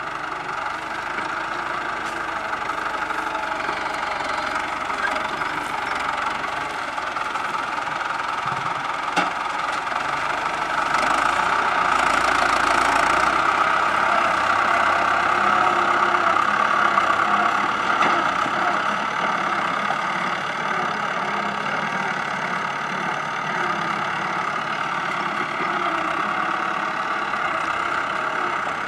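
Sugarcane grab loader's engine running steadily as the machine drives and manoeuvres, growing louder for several seconds about a third of the way in.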